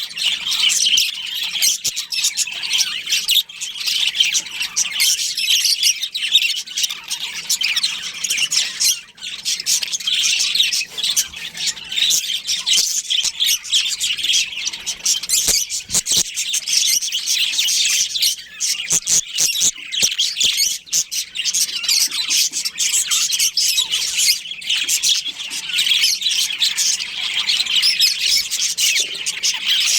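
A colony of budgerigars chirping and chattering nonstop, many birds calling over one another.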